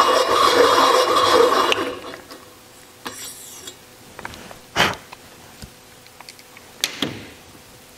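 Hand-cranked carbide valve seat cutter scraping as it cuts the 30-degree angle into a valve seat of an air-cooled Porsche 911 cylinder head, a steady rasp that stops about two seconds in. A few light clicks and knocks follow as the cutter is lifted off the pilot.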